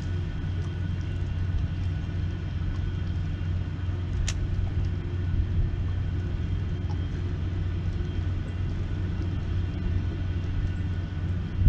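Steady low rumble of heavy diesel machinery on the large vessels moored close by, with a faint steady whine above it. A single sharp click about four seconds in.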